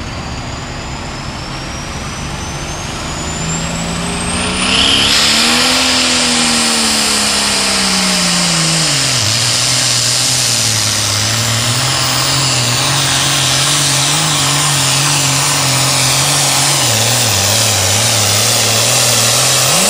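Oliver super farm pulling tractor's turbocharged diesel engine under full throttle on a pull. A high whine climbs for the first few seconds, then about five seconds in the engine comes on hard, its revs rising and then dropping to a lower, slightly wavering pitch as it pulls the loaded sled.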